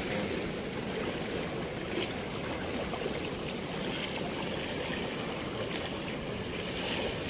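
Steady rush of flowing river water, with a couple of faint splashes.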